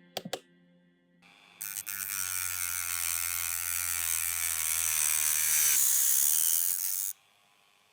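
A small electric power tool running: two clicks, then a steady whirring motor with a hiss over it for about six seconds, which cuts off suddenly.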